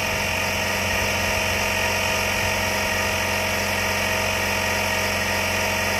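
Tankless onboard air compressor running steadily with a whining hum as it pumps up Air Lift Load Lifter 5000 helper air bags under a loaded truck, raising the sagging rear suspension.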